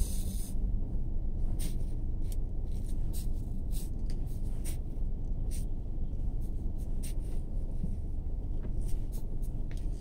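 Steady low rumble of a car moving, heard from inside the cabin, with scattered faint ticks.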